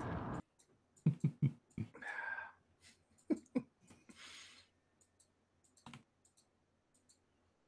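Scattered sharp clicks and taps, a handful in quick groups, with two short breathy noises between them, all at a low level.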